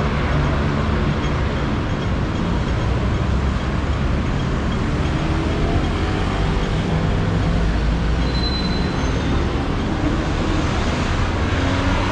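Steady city street traffic: car, bus and motorbike engines running with a low hum, and a brief high tone about eight seconds in.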